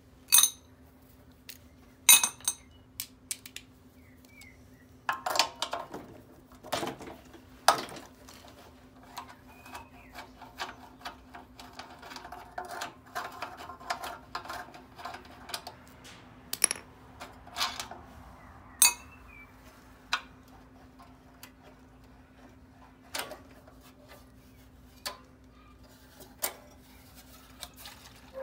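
A socket ratchet clicking and sharp metallic clinks and knocks of tools and parts as the fuel tank and carburettor assembly are unbolted from a Briggs & Stratton mower engine. The loudest clinks come in the first couple of seconds, and there is a run of rapid ratchet clicks in the middle.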